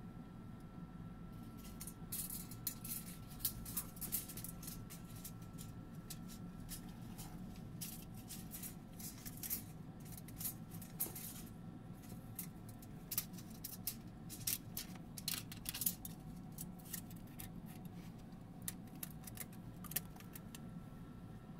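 Thin metal shim foil being handled and worked by hand under the base of an Optimum BF20L mill column, giving irregular crinkling and clicking, over a steady low hum. The foil is the 0.025 mm shim that brings the column square to the table.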